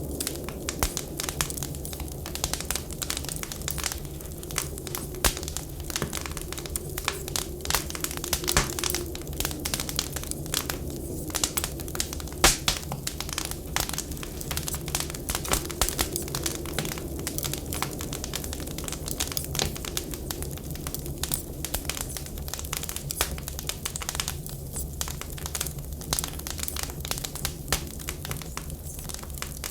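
Wood fire burning in a fireplace, crackling and popping in a dense, irregular stream of sharp snaps, over a steady low rumble.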